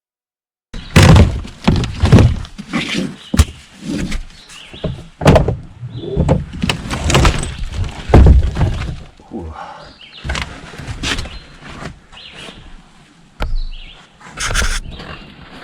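Rapid, irregular cracking and thudding as boat floor material is pried up and broken out, heaviest in the first few seconds and again around eight seconds in, then lighter knocks.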